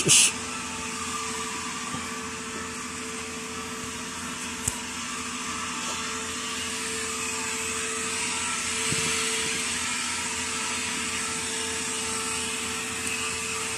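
Steady whir of a household motor appliance running, with a steady hum tone under it; a brief click about five seconds in.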